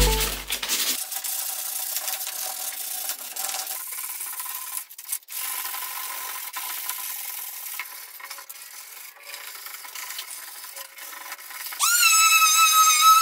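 Sandpaper rubbed back and forth by hand over a bare wooden cabinet door panel, an uneven scraping rasp. About twelve seconds in, a Makita electric finishing sander starts up on the wood with a louder, steady high whine.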